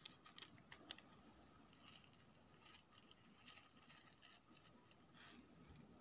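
Faint crinkling of a small plastic bag and light ticks as foam beads are shaken out of it onto slime in a plastic tub.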